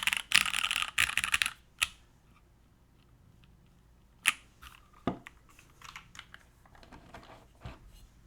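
Fast typing on an O-ring-mounted Plywrks Spyder keyboard, with vintage Cherry MX Black linear switches under GMK keycaps on a carbon fibre plate; the typing stops about a second and a half in. A few scattered clicks and knocks follow.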